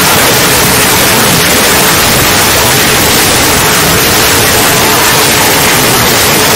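Loud, steady static-like noise: an even hiss across the whole range, with no pauses or distinct events.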